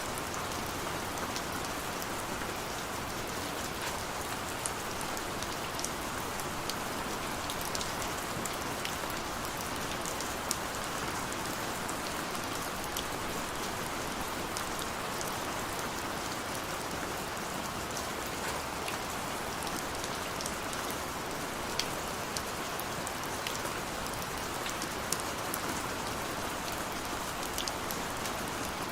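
Steady rain falling on surfaces, an even hiss dotted with many separate drop ticks.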